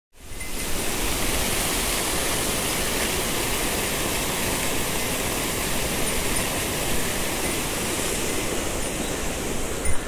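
Mountain stream water rushing steadily, fading in at the start. A brief thump near the end is the loudest moment.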